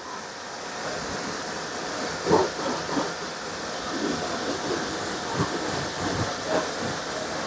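Pressure washer spraying water at low pressure into a car's engine bay: a steady hiss of spray that builds up in the first second, with irregular spatter as the water hits engine parts.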